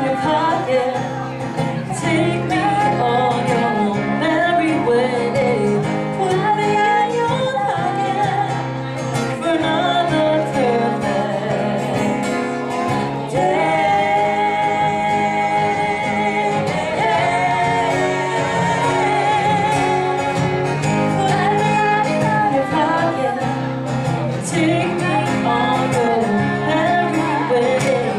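A live song: an acoustic guitar played under female vocals that carry on throughout.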